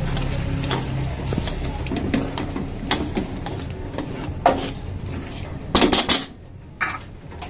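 Wooden spatula stirring and scraping through a thick meat sauce in a metal wok, with scattered knocks against the pan. The loudest knocks come as a quick cluster about six seconds in.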